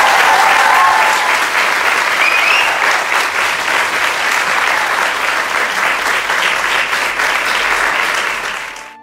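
Audience applauding loudly after a talk, with a few cheers in the first seconds, fading out near the end.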